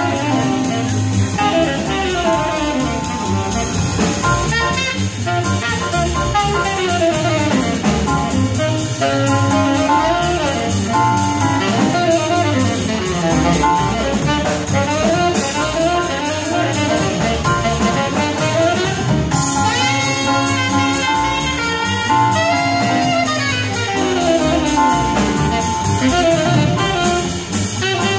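High school jazz big band playing live, a saxophone solo running over the horns and drum kit.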